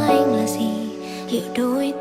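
Background music: a slow, gentle song with a sung melody over sustained notes.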